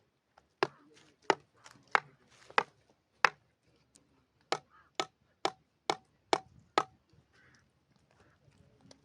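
A run of sharp blows: five strikes, a short pause, then six quicker strikes, each a hard knock.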